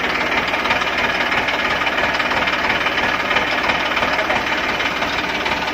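Tractor diesel engine idling just after starting, a steady knocking clatter. Its air intake is tapped by a pipe to draw vacuum for a milking machine.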